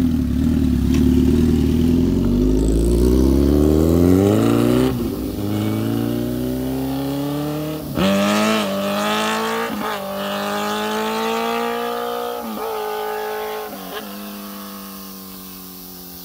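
2012 Honda CBR1000RR's inline-four engine, with a new aftermarket exhaust, sitting at low revs and then pulling away hard. It revs up through the gears with about five quick upshifts, each rise in pitch cutting off and dropping, and the sound fades as the bike gets farther off.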